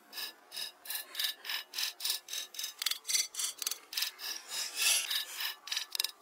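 A large knife shaving bark and wood from a log in quick, even strokes, about three a second, each a short scraping rasp.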